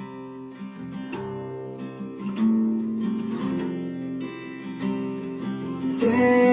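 Acoustic guitar playing chords, picked and strummed, with a new chord about every second, growing louder near the end.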